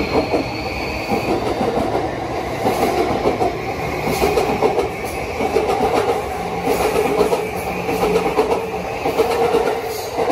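E235-series Yamanote Line electric train running past on the adjacent track, its wheels clattering over the rails. A high whine fades out about a second in.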